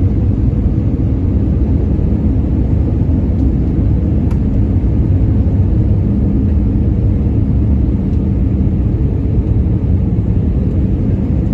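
Airbus A320 jet airliner coming in to land, heard as a steady low rumble.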